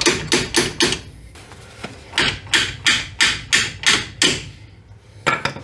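A hammer tapping the lower, non-eccentric strut-to-knuckle bolt on a Subaru Outback's front strut to drive it through the holes, in quick metallic blows with a short ring. A few come in fast succession, then after a pause about seven more at roughly three a second, and a last single blow near the end.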